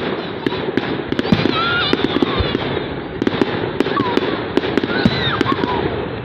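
Fireworks going off: a dense, continuous run of sharp cracks and pops over a steady hiss of more distant bangs.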